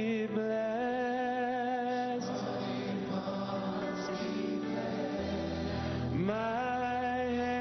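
Gospel worship song with singing over instrumental backing. A long held sung note opens, and the voice slides up into the next line about six seconds in.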